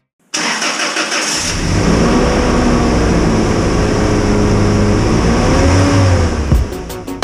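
An engine starts suddenly and runs loud, its pitch holding steady, then rising and falling near the end before it stops. Rhythmic music comes in just after.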